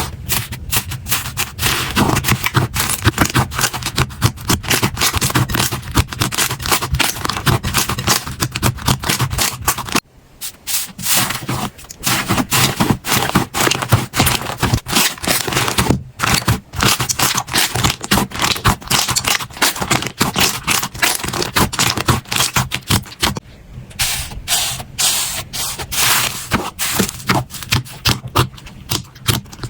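Slime being squeezed and pressed by hand close to the microphone, giving fast, dense crackling and popping clicks. It breaks off briefly about ten, sixteen and twenty-three seconds in, then goes on.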